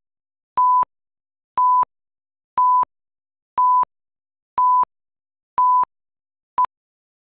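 Countdown leader beeps: a single steady tone sounding for about a quarter second once every second, seven times, the last one only a short blip.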